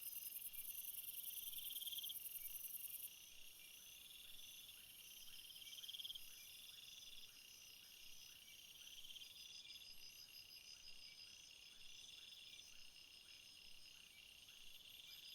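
Night-time insect chorus, faint: crickets and other insects calling in overlapping high-pitched chirps and trills, one trill repeating about every second and a half. A dense high buzzing in the chorus stops about three seconds in.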